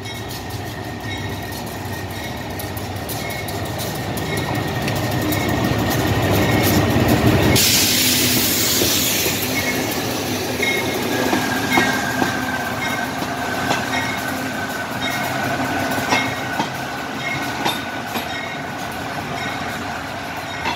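GEA-class diesel locomotive's bell ringing about once a second as the train pulls in, over the diesel engine, wheel clicks and a high brake or wheel squeal. The engine is loudest as the locomotive passes, with a burst of hissing about eight seconds in.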